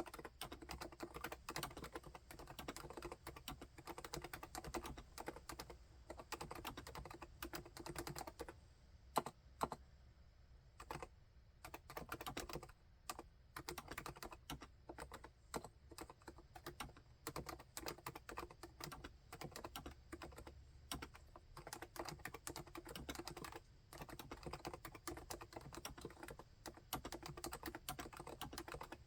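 Steady, quiet typing on a full-size Realforce keyboard with silenced Topre electrostatic capacitive switches and HiPro-profile Renso keycaps: a fast run of keystrokes, broken by a short pause about a third of the way in, with one louder single keystroke just before it.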